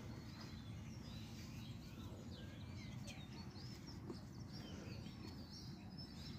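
Several birds chirping and twittering, faint, over a steady low background rumble.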